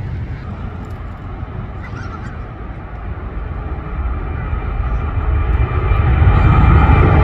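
Jet airliner flying low overhead: its engines grow steadily louder over the last few seconds, a deep rumble with a high steady whine.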